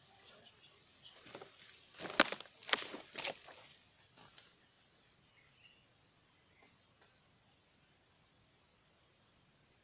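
Insects chirring steadily in the background, with a short spell of rustling and three sharp cracks or crunches about two to three seconds in, like steps or handling in dry vegetation.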